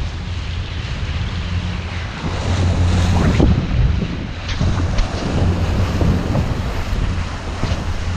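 Small motorboat running at speed over choppy sea: a steady low engine hum under the rush of water along the hull, with wind buffeting the microphone. The hull slaps through waves a few times near the middle.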